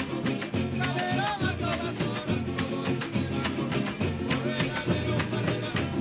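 Tamunangue music from Lara, Venezuela: a string group of strummed cuatros and guitars playing a fast, driving beat, with a voice singing a short line about a second in.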